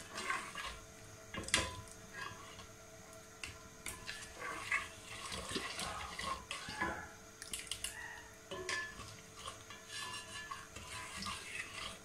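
A ladle stirring a thick, wet fruit-and-sugar mixture in an aluminium pot, with scattered light knocks and scrapes against the pot's sides and base and the slop of the pulp.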